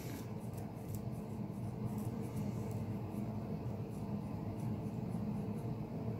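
Cotton swab scrubbing a switch contact pad on a cruise-control button circuit board: faint, repeated scratchy strokes over a steady low hum, cleaning the dirty contact with isopropyl alcohol.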